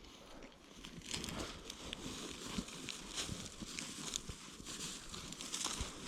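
Crunching and scuffing in snow: an irregular run of crackly rustles and soft thumps that gets busier about a second in.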